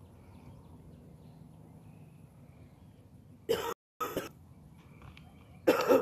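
A person coughing in short bursts: two coughs about three and a half seconds in, with the sound cutting out briefly between them, and another near the end.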